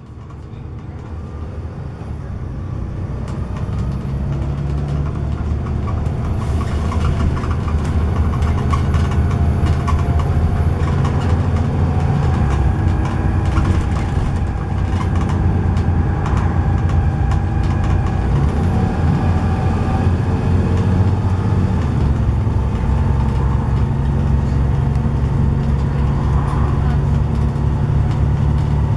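Volvo B7TL double-decker bus running on the road, heard from inside on the upper deck: the steady drone of its six-cylinder diesel engine and drivetrain, with frequent rattles from the body and fittings. The sound fades in over the first several seconds.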